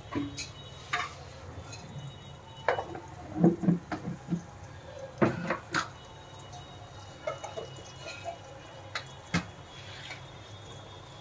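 Masala gravy thinned with water coming to a boil in a non-stick pan: irregular bubbling plops and pops, over a low steady hum.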